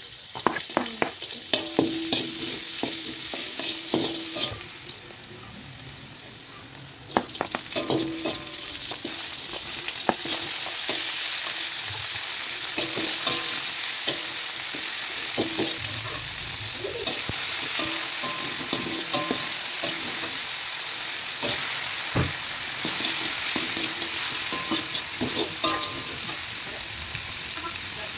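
Shallots, garlic, chilies and tomato sizzling in hot oil in a wok, stirred with a metal slotted spatula that clicks and scrapes against the pan. The sizzle drops for a couple of seconds about five seconds in, then runs louder and steadier from about ten seconds on.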